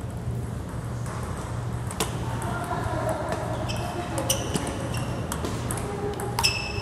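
Table tennis rally: the ball clicking sharply off the paddles and bouncing on the table, one hit about two seconds in, then a quick run of hits in the second half, over a steady low hum.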